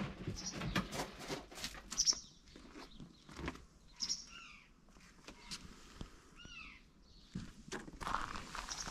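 Several short, high chirping calls, some falling in pitch, among scattered light clicks and rustling.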